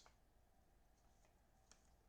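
Near silence, with two faint clicks from trading cards being handled, about a second apart near the middle.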